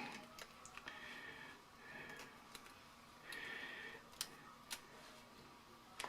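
Faint handling sounds of a mold being taken apart: scattered sharp clicks and a few short scraping rustles.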